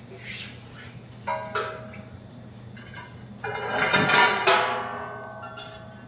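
Metal clanks and clinks of a stainless liquid nitrogen transfer hose and dewar fittings being handled. The knocks ring briefly, and the loudest clatter comes a little past the middle.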